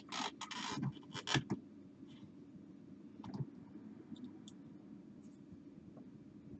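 Small clicks and rustles as the parts of an opened CD player are handled, bunched in the first second and a half, then only a few faint ticks.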